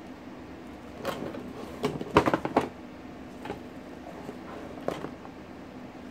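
Handling noise from an ATX power supply and its braided cable bundle being moved about and set down on its cardboard box: a cluster of knocks and clatter about two seconds in, then a couple of lighter knocks, over a steady low hum.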